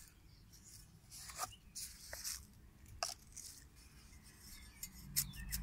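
Hand trowel digging into garden soil: quiet, scattered scraping and crunching, with a few sharp clicks.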